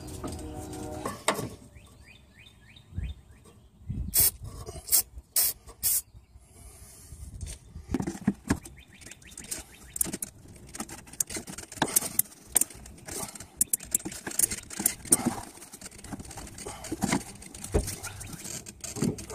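Gloved hands working the plastic fuel-line quick-connector on top of a 2005 Nissan Xterra's fuel pump assembly to release it: irregular clicks, taps and rubbing of plastic fittings, with several sharp clicks about four to six seconds in.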